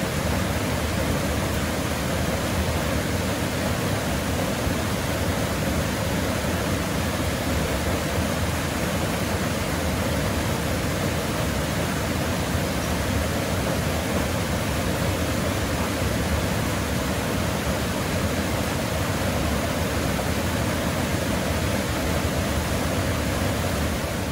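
Small waterfall on a mountain stream, water rushing steadily over a rock ledge into a pool below.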